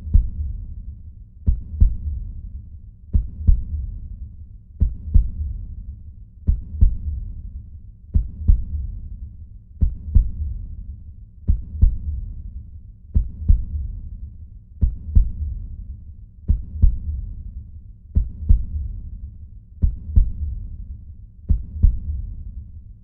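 Heartbeat sound effect: a slow, steady lub-dub, each pair of deep thumps repeating about every 1.6 seconds.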